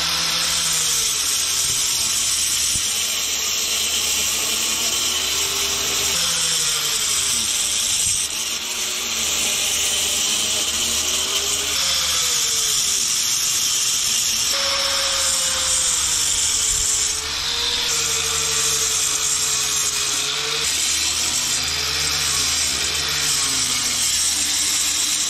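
Angle grinder with a quarter-inch double-blade wheel cutting out the cracked mortar joints of a concrete block foundation wall. It makes a steady, harsh grinding, and the motor's tone wavers as the wheel bites and eases. The grinding lets up briefly about 8 and 17 seconds in.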